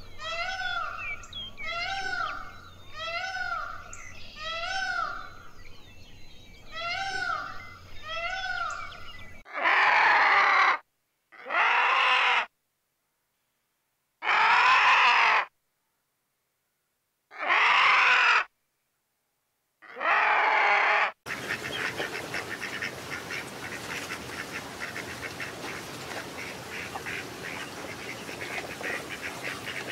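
A series of bird calls. First comes a run of short, repeated calls about once a second. Then five loud calls of about a second each, with silent gaps between them. Last comes a steady, noisy chatter with fast pulses, in the manner of ducks.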